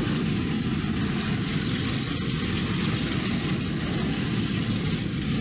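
Double-stack container freight train rolling past: a steady low rumble of wheels on rail, with a few faint clicks.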